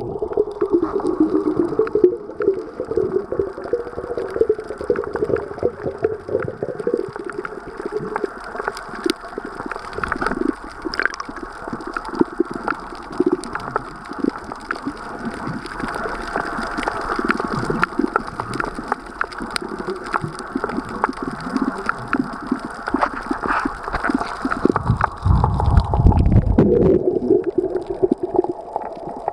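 Underwater ambience picked up by a submerged camera: water gurgling and sloshing, with many small clicks and crackles scattered through it. A louder, low rush of water comes about 25 seconds in.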